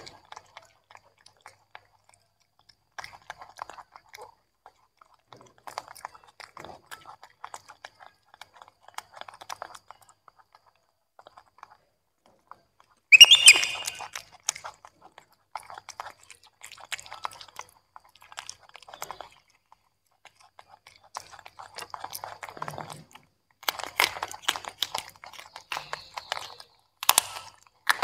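Young macaques chewing and biting steamed broccoli and carrot, in crackly, crunchy runs broken by short pauses. About halfway through comes one short, loud, high-pitched squeak, and the crunching grows busier near the end.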